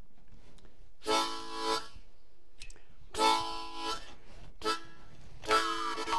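Harmonica blowing short chords, four blasts with gaps between. On the last, held chord a musical saw comes in with a single wavering tone that slides downward.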